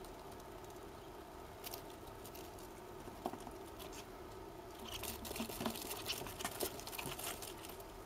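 Light scratching and rustling clicks over a steady hum, growing busier about five seconds in.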